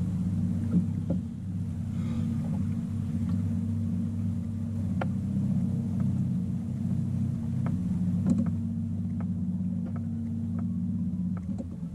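Steady low hum of a bass boat's motor running, with a few light clicks over it.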